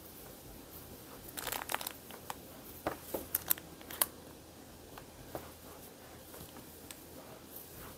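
Handling noise of Tunisian crocheting: soft rustling of cotton yarn and a plastic crochet hook in the hands, with a few short sharp clicks about three to four seconds in.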